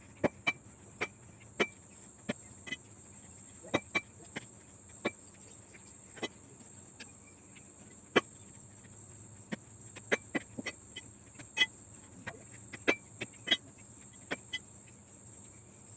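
Large kitchen knife cutting a raw jackfruit on a board: irregular sharp knocks, about one or two a second, as the blade chops through and strikes the board.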